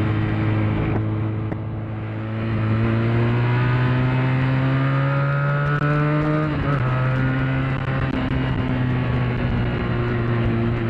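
Benelli 302's 300 cc parallel-twin engine under way, heard from the rider's seat. Its note rises steadily for several seconds, drops sharply a little past halfway through, then holds steady.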